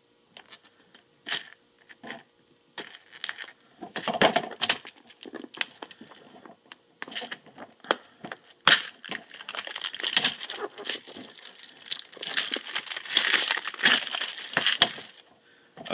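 A knife cutting the plastic seal of a clear plastic case of screws and hands working the case open: crinkling and tearing plastic with many sharp clicks and taps, busiest in the last few seconds.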